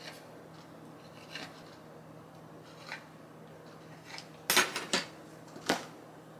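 Kitchen knife cutting a rope of gnocchi dough, its blade tapping lightly on the countertop a few times. It is followed by a few louder metallic clatters on the counter about four and a half seconds in and once more a second later.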